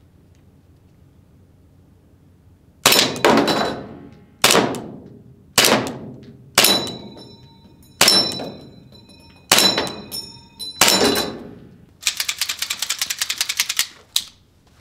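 ARMY TTI Combat Master gas blowback airsoft pistol firing eight single shots, spaced about a second apart, each followed by a metallic ring from the steel spinner target it is hitting. Near the end comes a quick rattle of rapid ticks lasting about two seconds.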